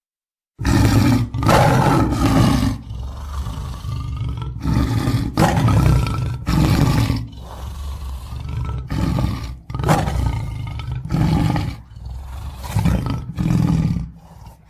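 Tiger roaring in a string of deep, loud roars, each about a second long, starting about half a second in after a moment of silence.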